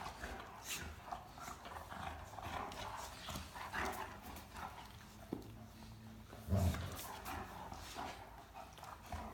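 Two Great Dane puppies play-wrestling: paws scuffling and light knocks throughout, with a brief louder low sound about six and a half seconds in.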